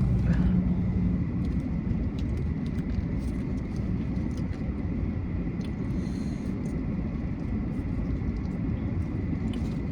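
Steady low rumble of a car heard from inside the cabin, engine and road noise, with a few faint clicks over it.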